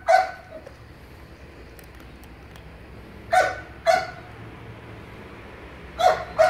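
A dog barking, unseen, in short sharp barks that come in pairs: one right at the start, two about three and a half seconds in, and two more near the end.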